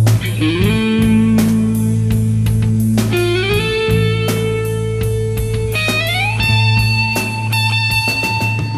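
Instrumental passage of a pop-rock song: an electric guitar holds long notes, sliding up into each of three of them, over a steady low bass note.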